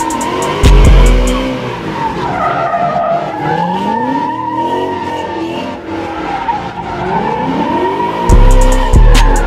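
A car doing donuts on pavement, its tires squealing steadily while the engine revs rise and fall over and over. Music with heavy bass hits and hi-hat clicks plays over it, loudest at the start and again from about eight seconds in.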